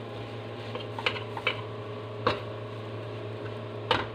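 A metal spatula clicking and scraping against a wok a handful of times while rice is stir-fried, over a steady low hum.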